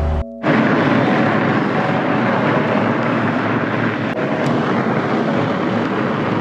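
Steady rushing of wind over the microphone with tyre noise from a fat bike's studded tyres rolling on a snowy road. A low engine hum cuts off abruptly just after the start.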